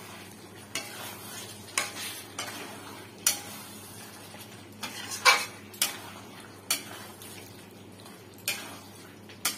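Metal spatula stirring thick chicken curry in an aluminium kadai, scraping and clinking against the pan at irregular intervals, roughly once a second.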